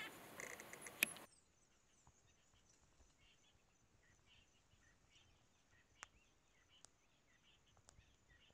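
Brief squeaky calls from African wild dog pups at play, cut off about a second in after a sharp click. Then near silence, with faint repeated high chirps and a few soft clicks.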